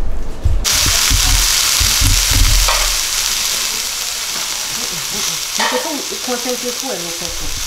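Sliced bell peppers and onions sautéing in a skillet: a steady sizzling hiss that starts abruptly about half a second in, with dull knocks during the first few seconds.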